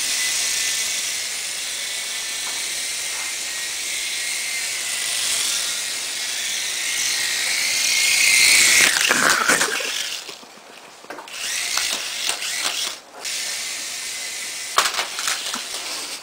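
Small electric motor and rotor of a toy RC cockroach helicopter whirring at a steady high pitch, then winding down with a falling pitch about nine seconds in. A few clicks and knocks follow near the end.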